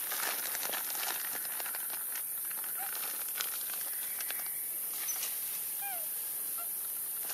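Outdoor ambience: light rustling and crackling in grass and leaf litter over a steady high hiss. A few short, faint calls slide in pitch, one about three seconds in and a couple around six seconds.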